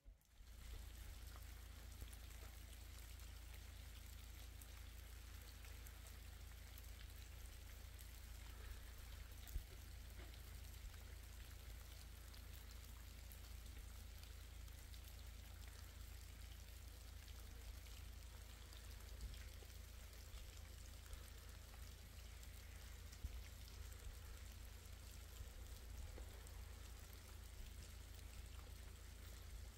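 Rain falling steadily, a soft even patter with scattered sharper drop ticks, over a low steady rumble.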